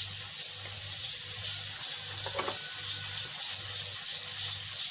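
Steady kitchen hiss like food sizzling, with a brief scrape or rub about two seconds in.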